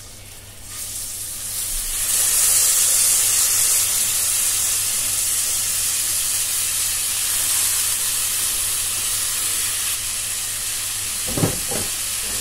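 Drained moong dal tipped from a mesh strainer into hot ghee and oil with whole spices in a kadai, setting off a steady sizzle that builds over the first two seconds and keeps going as the dal fries. A couple of short knocks near the end.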